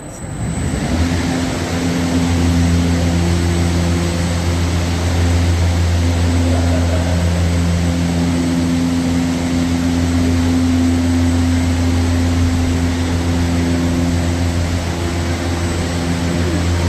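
Large test fans of a wind machine spin up and run steadily, a loud rushing of air over a low, even drone. The sound climbs over the first two seconds, then holds.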